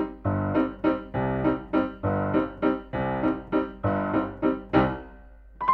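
Background piano music: a bouncy run of short notes, about three or four a second, that stops about five seconds in, followed by a brief single high tone.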